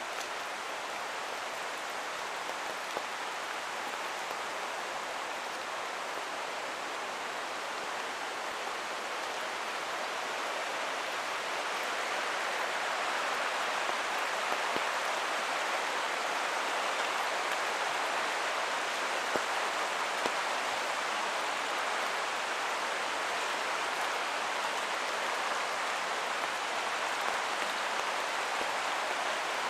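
Steady hiss of rain falling together with a rushing creek. It grows louder about ten seconds in, and a few faint ticks of drops come through.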